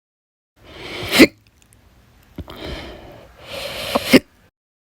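Chronic hiccups: two sharp hiccups about three seconds apart, each cutting off an audible breath in. A faint click and soft breathing come between them.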